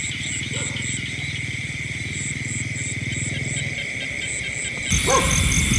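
Night chorus of frogs croaking in a low, rapid pulsing drone, with insects trilling steadily high above. About five seconds in it switches abruptly to a different, chirping insect sound.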